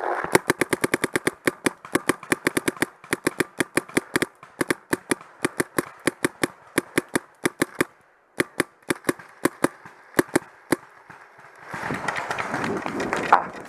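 Paintball marker firing rapid strings of shots, several a second with short pauses, stopping about eleven seconds in. Near the end a loud rush of wind and movement noise as the shooter moves off fast.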